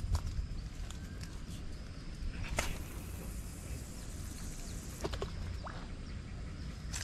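Handling of a spinning rod and reel: one sharp click about two and a half seconds in and a few faint clicks about five seconds in, over a low steady rumble.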